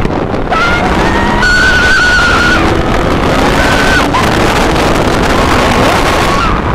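Wind rushing over the microphone on a Yamaha MT-09 under hard acceleration at high speed, with the three-cylinder engine running hard beneath it. A woman's high-pitched screams come through in a few held cries over the first four seconds.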